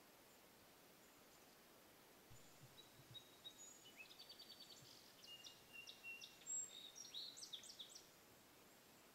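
A faint songbird singing one long, varied song of high whistled notes and quick trills, starting about two seconds in and lasting about six seconds.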